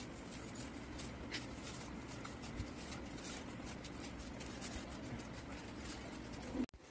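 Soft rustling of newspaper parcels and a carry bag, with a few light taps, as food parcels are packed into the bag by hand, over a steady low hum.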